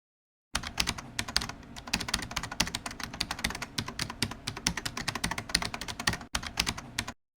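Fast typing on a computer keyboard: a dense run of quick keystrokes that starts abruptly about half a second in and stops abruptly near the end, with one brief break shortly before it stops.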